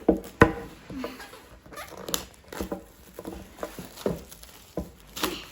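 Irregular rustling, scraping and tapping of an iPad's retail box and its wrapping being handled and opened, with a sharp knock about half a second in.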